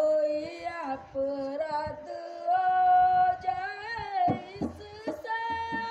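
A single voice singing a slow devotional-style melody in long held notes that bend and waver, with a few soft percussive beats in the second half.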